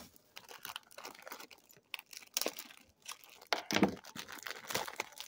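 Packaging crinkling and rustling as a boxed fridge magnet is handled and opened: irregular crackles and clicks, loudest about four seconds in.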